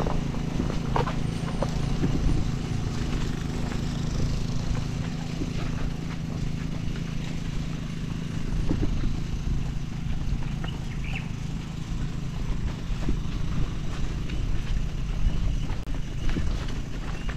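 Mountain bike ridden over a rough stony track: irregular rattling and knocking of the bike over a steady low rumble.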